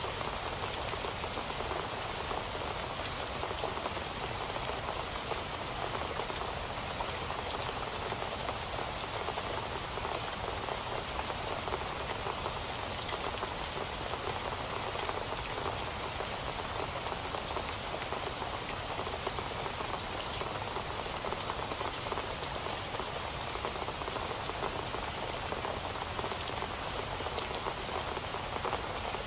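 Steady rain falling on a surface, an even hiss of countless drops with faint individual drop ticks and no change in strength.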